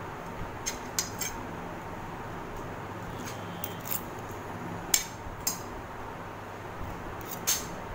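Metal spoons and forks clinking against ceramic dinner plates during a meal, in scattered sharp clinks about a second apart, over a steady low hum.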